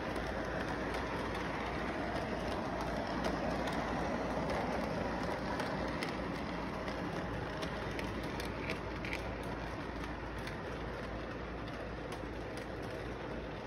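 Model train rolling past on its track: a steady rumble of motor and wheels with a few faint clicks, easing off slightly in the last few seconds as the cars go by.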